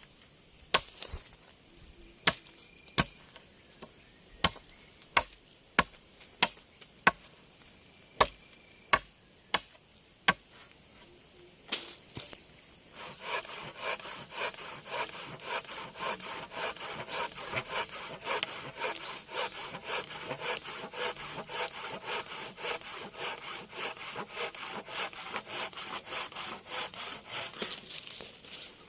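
Wood being cut by hand: about a dozen sharp chopping blows, then steady back-and-forth sawing strokes at two to three a second. A steady high insect drone runs underneath.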